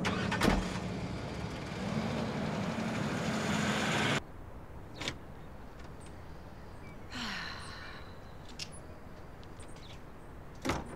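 A car driving, with a single thump about half a second in. It cuts off suddenly about four seconds in, giving way to quieter outdoor ambience with a few soft knocks.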